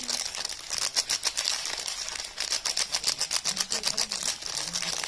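Rapid, dense crackling and clicking from soap bars and their paper or plastic wrapping being handled and unwrapped.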